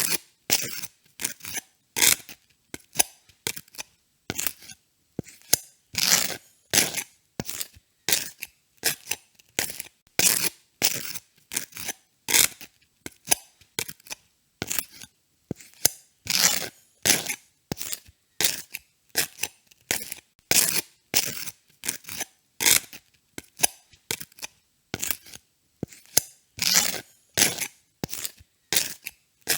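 A knife spreading butter on toast: short scraping strokes across the toast, about two a second, some louder than others.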